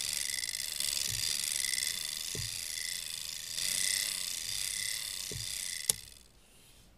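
Spring motor of a Paillard Bolex clockwork movie camera being wound with its side crank: a steady ratcheting whir with a few dull knocks. One sharp click about six seconds in, then the sound cuts off.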